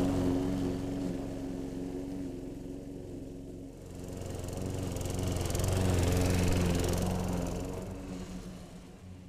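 Lawn mower running steadily. Its sound fades, swells again about halfway through, then fades near the end as it moves away from and back toward the microphone.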